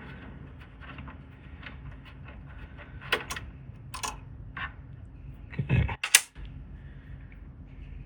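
Scattered light clicks and taps of small parts and tools being handled while an electronics unit is taken apart, with one sharper click about six seconds in.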